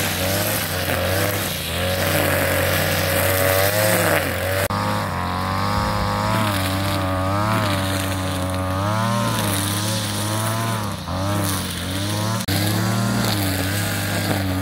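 Brush cutter engine running as it mows tall grass, its pitch rising and falling with the throttle.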